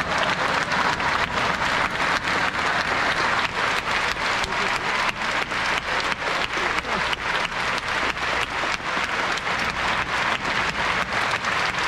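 Football stadium crowd clapping in unison in a steady rhythm from the stands.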